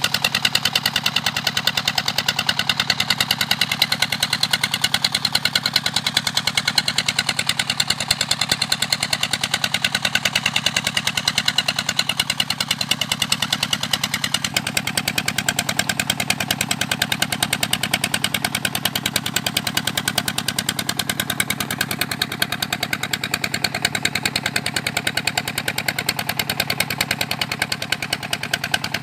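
Small engine of a suction pump running steadily with a fast, even beat while it sucks waste from the bottom of a shrimp pond. The tone shifts slightly about halfway through.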